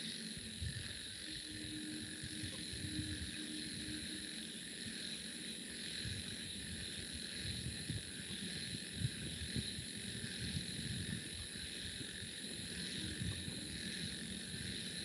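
Faint steady high-pitched chorus of night insects, crickets, with low rumbling and a few soft knocks underneath.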